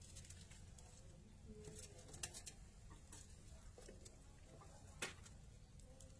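Faint scattered clicks and taps, a sharper one about two seconds in and another near the five-second mark, with a few soft low calls from a caged rice-field bird.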